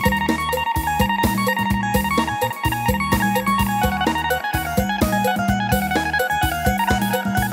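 Yamaha PSR-S770 arranger keyboard being played: a stepping melody line over steady bass notes and an even beat from its accompaniment.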